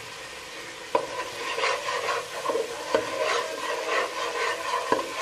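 Steel ladle stirring and scraping a tomato-paste masala frying in oil in a nonstick pot, with the masala sizzling. The stirring starts about a second in, and the ladle knocks sharply against the pot three times, about two seconds apart.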